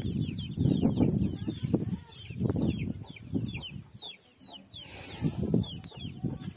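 Chickens clucking, with many short, high, falling chirps throughout.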